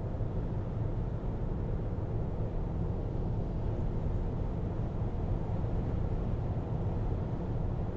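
Steady road noise inside a car cruising at highway speed: an even low rumble of tyres and engine that holds level throughout.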